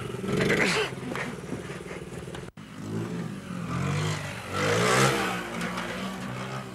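Small mini motorbike engine running and revving up and down as it is ridden along a dirt track. The sound drops out suddenly for an instant about two and a half seconds in, then the engine revs rise to their highest about five seconds in.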